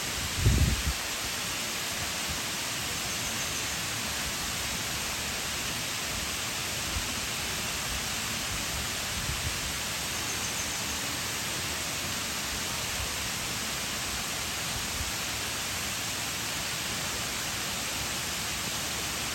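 Waterfall pouring steadily: a dense, even hiss of falling water, strongest in the upper range. A brief low thump about half a second in.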